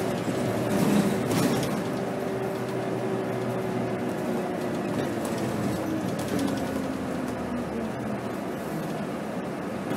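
Scania K270 city bus running along the road, heard from inside: steady engine and drivetrain noise with a thin whine that slowly falls in pitch as the bus eases off.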